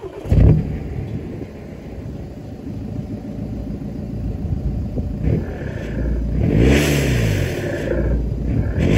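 Jetta 2.0 TDI four-cylinder turbodiesel heard at the tailpipe, running through an exhaust with the muffler and catalytic converter deleted. There is a sharp surge about half a second in, then steady running that grows slowly louder. Near the end a throttle blip rises and falls in pitch.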